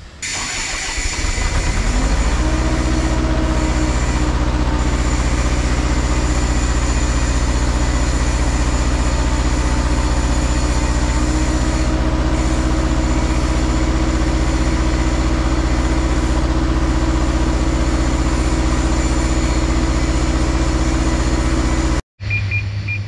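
Kubota KX161 mini excavator's diesel engine revving up over about two seconds, then running steadily at high revs while the hydraulics are worked. This is the engine the mechanic judges too weak to give the main pump enough power.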